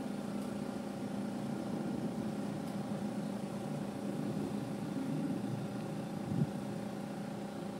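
A motor running steadily at one constant pitch, with a soft knock about six seconds in.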